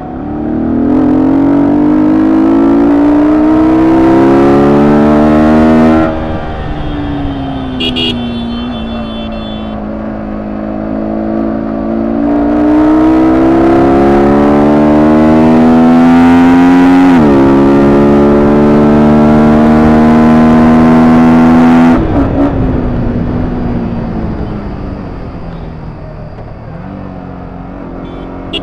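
Sport motorcycle's engine heard from the rider's seat, rising in pitch as it accelerates, dropping sharply as the throttle closes about six seconds in, then pulling up again with a quick dip in revs around seventeen seconds. The throttle closes again just after twenty-two seconds and the revs fall away as the bike slows.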